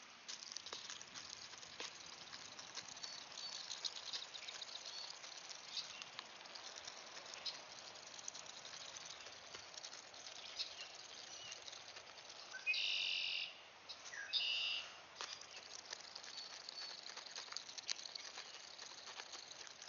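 Canada goose's bill picking and rummaging in a tub of sunflower seed and cracked corn: a steady run of crisp clicks and rattles. About two-thirds of the way through, two short, loud bird calls come a second and a half apart.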